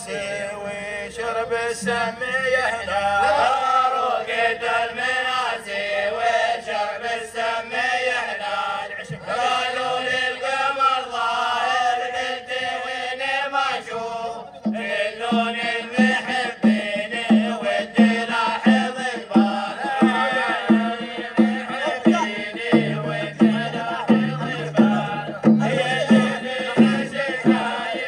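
A group of men singing an Omani folk chant together. About halfway through a drum starts a steady beat of roughly two strokes a second under the singing, and a deeper note joins near the end.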